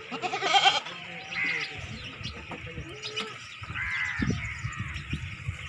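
Birds chirping and calling, with one loud call in the first second and several short chirps after it.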